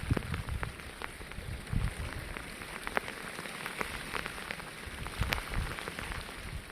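Heavy rain falling, an even hiss dotted with many sharp ticks of individual drops striking a surface, under an irregular low rumble.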